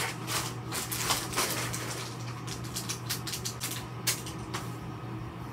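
Crackling and rapid ticking of adhesive tape and its plastic packaging being handled and peeled, with one sharper click about four seconds in, over a steady low hum.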